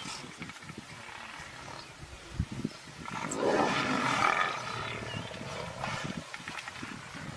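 Lion roaring and snarling, one loud rough roar about three seconds in that lasts nearly two seconds, over quieter growling.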